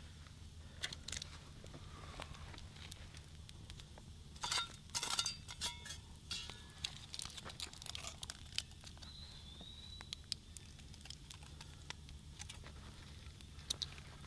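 Crinkling and tearing of wrapping as a hand unwraps an Esbit solid-fuel tab, loudest in a few bursts about four to five seconds in, over scattered crackles from a small wood fire.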